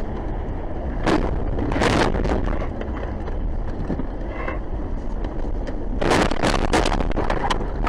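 Steady road and engine rumble inside a car on a snowy road, with a few short scraping bursts a second or two in; from about six seconds a rapid run of bangs and crunches as the car crashes off the road and tumbles over.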